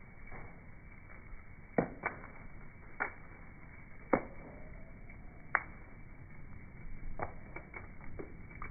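Bonfire crackling with about ten sharp, irregular pops over a low steady hiss, slowed down by slow-motion recording so the pops sound dull and low.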